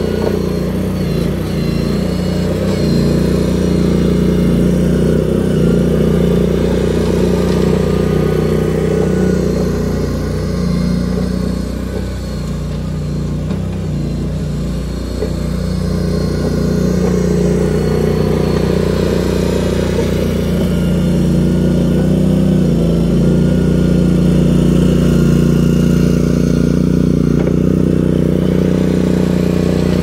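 Boxer 320 mini skid steer's engine running steadily under load as the machine works, a little quieter in the middle as it moves off and louder again as it returns.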